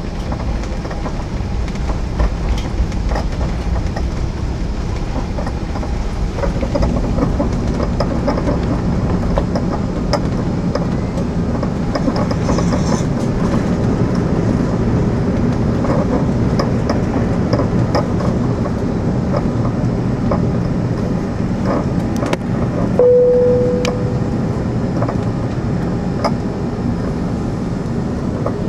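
Inside the cabin of an Airbus A380 on its take-off roll: its four Engine Alliance GP7200 turbofans run at take-off thrust over the rumble and clatter of the wheels on the runway. The noise fills out after about six seconds as the aircraft accelerates. A brief tone sounds about three-quarters of the way through.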